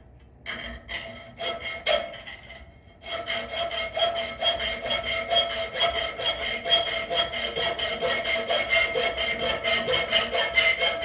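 Hacksaw cutting through quarter-inch bar stock clamped in a vise: a few separate starting strokes, then rapid, even back-and-forth strokes from about three seconds in, the clamped bar ringing through each stroke.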